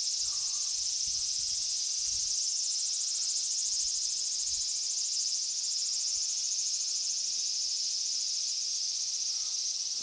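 Male cicadas singing: a steady, high-pitched shrill drone with a fast pulsing texture, swelling a little in the middle. It is the males' mating call.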